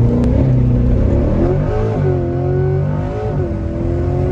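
Car engine accelerating hard from a launch-control start, its pitch climbing and then dropping sharply at two quick upshifts, about two and three seconds in.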